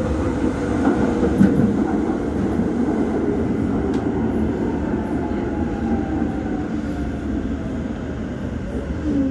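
Docklands Light Railway train running, heard from inside the car: a steady rumble of wheels on the track with a motor whine that slowly falls in pitch as the train slows into a station.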